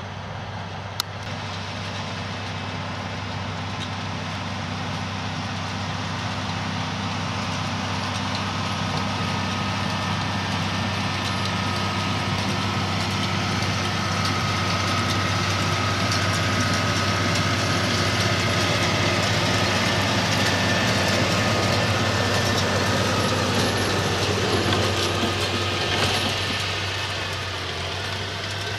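New Holland T7 tractor's diesel engine running steadily under load as it tows a loaded silage wagon past, growing louder as it approaches and easing off near the end.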